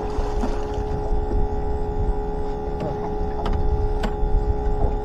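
Steady, high whine of a bait tank's pump, several fixed tones held over a low rumble, with a few sharp clicks, the loudest about four seconds in.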